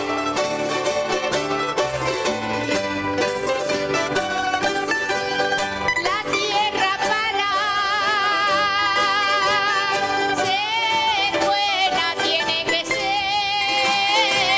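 Background music: plucked strings, banjo-like, playing a busy accompaniment, joined about six seconds in by a singing voice with heavy vibrato.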